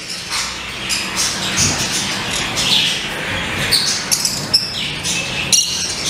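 Many caged lovebirds and other small parrots chattering together: a dense, steady mix of shrill chirps and squawks.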